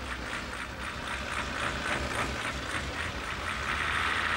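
Fire engine sound effect as it drives away: a steady engine hum under a fast repeating high sound, about four strokes a second. It swells near the end and then begins to fade.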